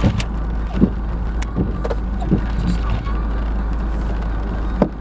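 Hailstones and heavy rain striking a car's windscreen and roof, heard from inside the car: a handful of sharp, irregular knocks over a steady low rumble.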